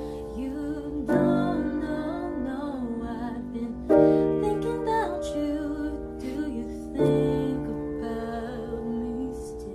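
A voice singing along to piano chords, a new chord struck about every three seconds, near one, four and seven seconds in.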